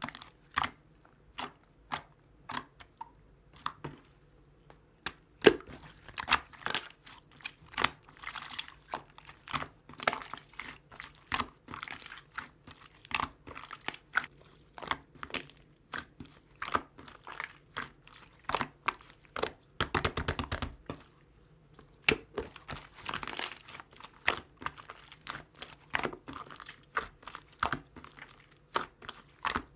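Clear slime being squished and poked by hand, giving irregular sticky clicks and little air-bubble pops, with quick crackling runs of them now and then, densest about twenty seconds in.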